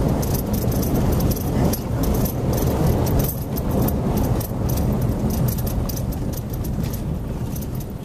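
Car interior noise while driving slowly: a steady low rumble from the engine and tyres on a rough street, with irregular light rattling clicks throughout.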